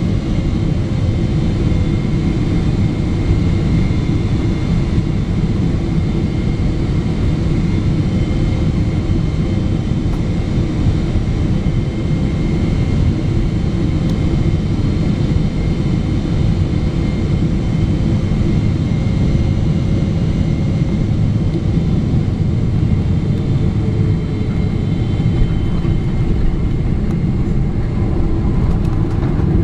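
Inside the cabin of a Boeing 777-300ER on final approach: the steady deep roar of airflow and the GE90-115B turbofan engine, with faint steady whining tones above it.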